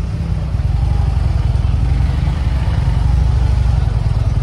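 Harley-Davidson motorcycle's V-twin engine running while under way, a loud, steady low rumble.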